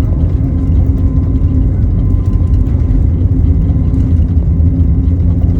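Steady low rumble of jet aircraft engines, with a faint steady whine over it.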